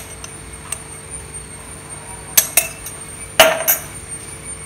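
Sharp clinks and knocks of a steel spoon and glass spice jars being handled on a kitchen counter: two close together about two and a half seconds in, and two more about a second later.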